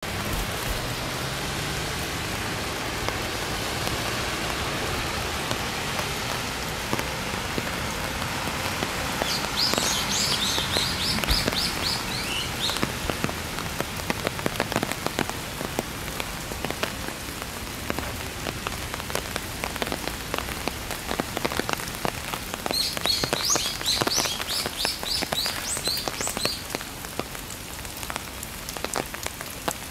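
Steady rain falling through trees, with many heavy drops tapping close by. A bird sings a quick run of high repeated notes twice, about ten seconds in and again some thirteen seconds later.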